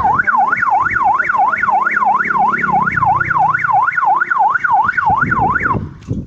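Three-tone electronic police-style siren fitted to an electric bicycle, sounding a fast yelp that sweeps up and down about three times a second. It cuts off about a second before the end.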